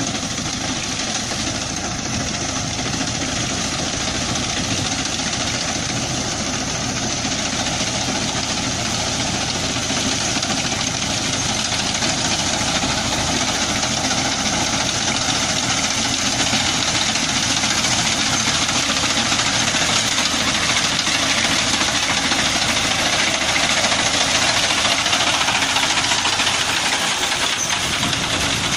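Tractor engine running steadily, with a dense even hiss of mechanical noise over it.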